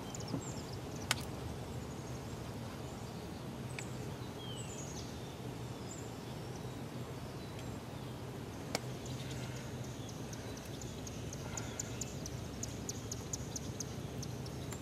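Quiet outdoor ambience with a steady low background hum, a few short bird chirps and two sharp clicks. In the last third comes a fast run of faint, high ticking.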